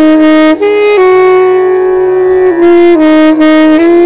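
Instrumental background music: a wind instrument plays a slow melody of long held notes that step up and down in pitch.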